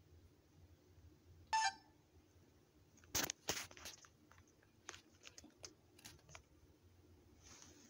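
Quiet room with handling noises: a short clink about a second and a half in, then a cluster of sharp clicks around three seconds in and scattered light ticks after.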